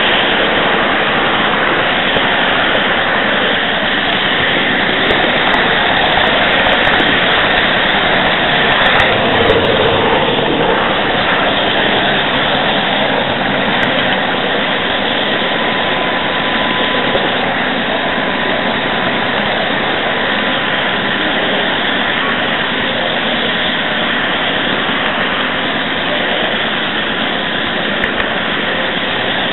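A model train running steadily along the track, picked up close by a small camera riding on it. The motor and wheels on the rails make a continuous noisy whirr.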